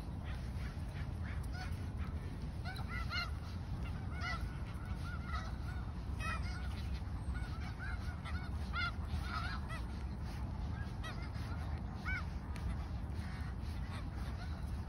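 A large flock of white geese honking, with many short calls overlapping throughout, over a steady low rumble.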